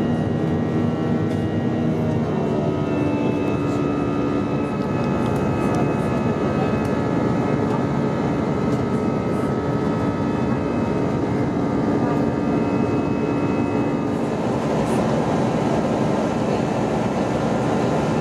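Steady cabin noise of an Airbus A321 in flight: jet engine drone and airflow rush, with several steady tones over it that shift a little in pitch now and then.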